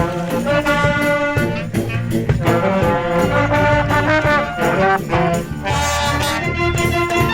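High school wind band playing an upbeat pop arrangement live, brass carrying the melody over a steady beat.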